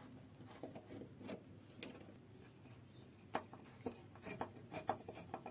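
Faint, scattered clicks and light scrapes of a hand screwdriver turning a screw out of a fitting on a wooden door, the clicks coming more often in the second half.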